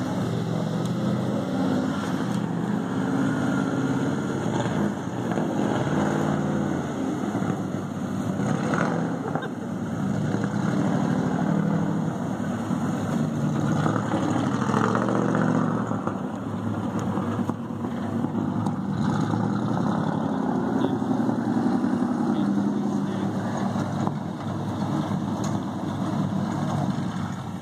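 Pickup truck engine running steadily, its level swelling and easing a little at times.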